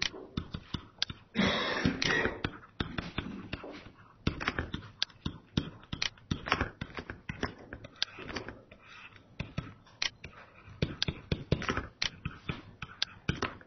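Stylus tapping and scratching on a tablet computer's screen while writing: irregular small clicks and ticks, with a brief louder rustle about a second and a half in.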